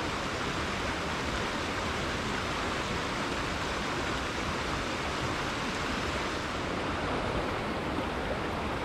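River water flowing and rushing steadily over rocks, a continuous even wash of water noise.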